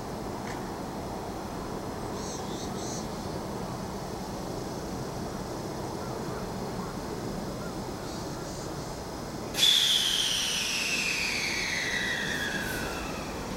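A JR Central 313 series electric train standing at a station, with a steady background hum. About ten seconds in, a sudden loud blast of escaping air sets off a whistling tone that falls steadily in pitch over about three seconds and then fades.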